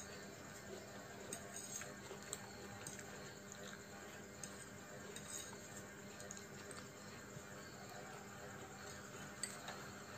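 Quiet eating sounds: a spoon scooping noodles from a plate, with a few light clinks and scrapes, over a faint steady hum.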